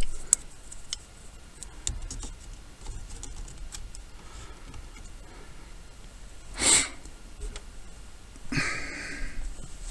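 Scattered light clicks and rattles of a hand tool and small metal and plastic parts as screws are taken out of a steering column. There is a short burst of noise about seven seconds in and a longer rustling stretch near the end.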